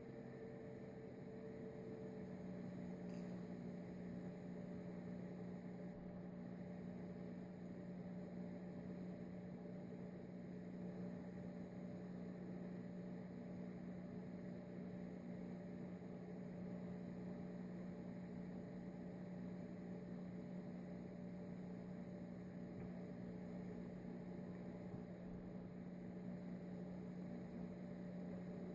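Steady low hum, with one pitch holding throughout and a faint hiss underneath.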